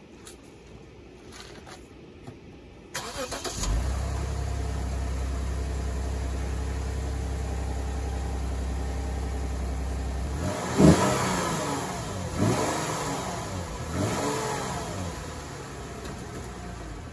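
Lexus IS250's 2.5-litre V6 starting about three seconds in and settling into a steady idle. It is then revved three times, each rev rising and falling, the first the loudest, and drops back to a quieter idle.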